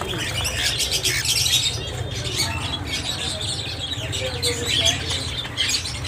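A flock of caged cockatiels calling, a dense, continuous chatter of short chirps and squawks, over a steady low hum.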